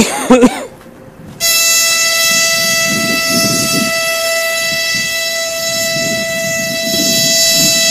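Freight locomotive's horn: two short loud blasts at the start, then a long steady horn blast that begins about a second and a half in and holds on one pitch.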